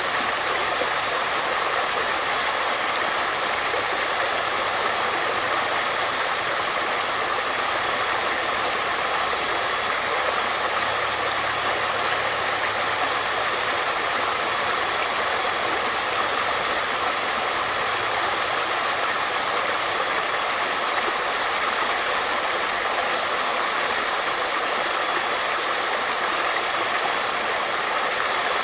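Flowing water running steadily, an even rushing sound that does not change.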